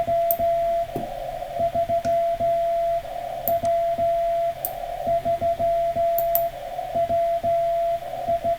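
Morse code (CW) from a ham radio transceiver: a single mid-pitched beat tone keyed on and off in quick dots and dashes, with hiss at the same pitch rising in the short pauses.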